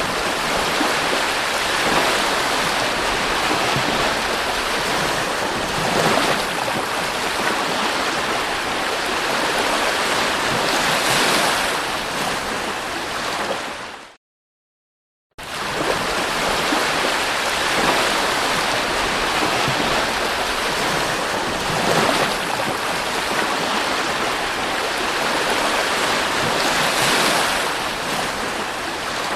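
Sea waves washing onto the beach, a steady rush of surf that swells every few seconds. It cuts to silence for about a second midway, then the surf resumes.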